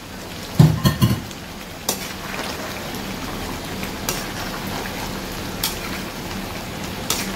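Potatoes being tipped into thick dum aloo gravy in a pan, a few heavy thuds about a second in, then the gravy sizzling steadily with occasional sharp clicks of a spoon against the pan.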